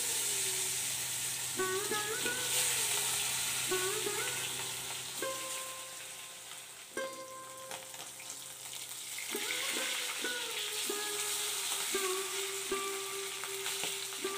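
Fish pieces sizzling steadily as they deep-fry in hot oil in a metal wok, with a flat metal spatula stirring and turning them. The sizzle gets louder partway through. Background music plays over it.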